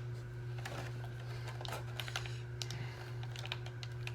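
Irregular small clicks and taps of hard plastic as an action figure and its parts are handled, over a steady low hum.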